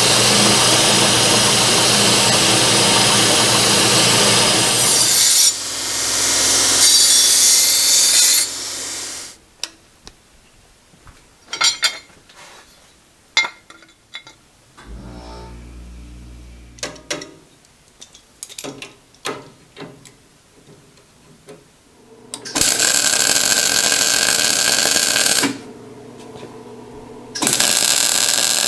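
RF-30 drill mill's end mill cutting a metal angle piece, a loud steady cutting noise for about nine seconds. Then a quieter stretch of scattered clicks and knocks from parts being handled, followed by two loud bursts of MIG welding, each a few seconds long.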